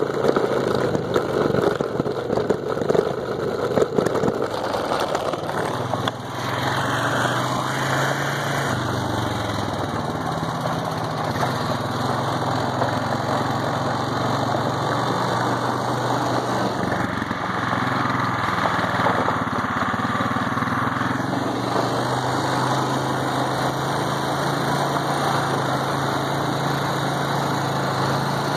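Small single-cylinder-type ATV engine running steadily as it rolls slowly along a gravel drive. For the first six seconds rustling and knocking on the microphone cover it.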